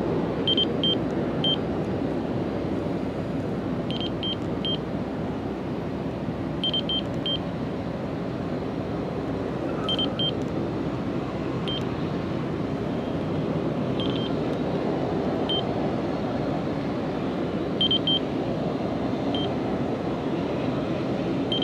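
Steady low rumble of engine noise around the airport, with short high-pitched beeps in twos and threes every few seconds.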